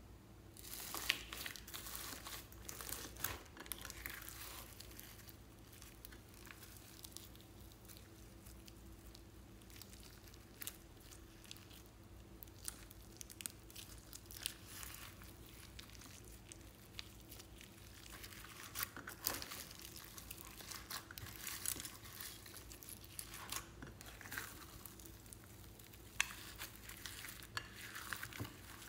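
Hands squishing and kneading slime mixed with glitter, sequins, beads and pom-poms, making irregular crinkling and crackling sounds.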